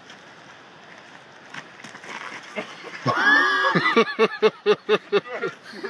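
Several men breaking into loud laughter about three seconds in: a high whooping laugh, then a rapid run of ha-ha pulses, about four a second.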